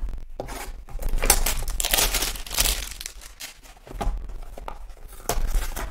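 A cardboard Donruss Optic football-card hanger box being torn open and its packaging crinkled as the cards are taken out: scratchy tearing and crinkling in several stretches with a few sharp clicks.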